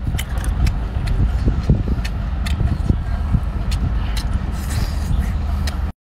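A steady low rumble, with scattered light clicks of shellfish shells knocking together as they are picked out of a pan.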